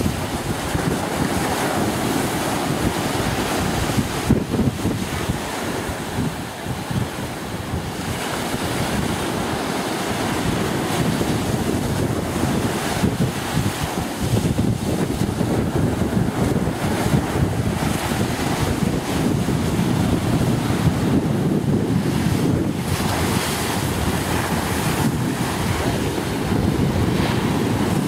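Wind buffeting the microphone over the wash of Atlantic surf: a continuous rushing noise, heaviest in the low range, that swells and dips with the gusts.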